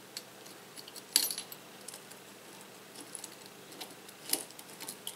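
Scattered small metallic clicks and taps of an Allen key and screws against the Anet A8 extruder's parts as the screws are fitted, with a sharper click about a second in and another about four seconds in.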